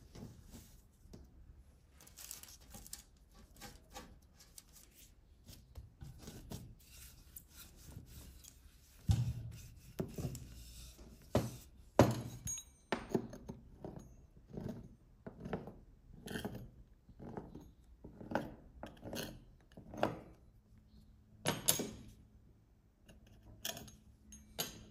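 Wooden rolling pin rolling out bun dough on a board, then a pizza-cutter wheel cutting it into strips. Soft rubbing gives way, about nine seconds in, to a heavy thump and a run of sharp knocks, roughly one or two a second.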